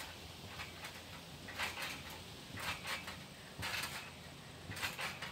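A person bouncing on an old round trampoline: the springs and mat give a short noisy sound with each landing, about once a second.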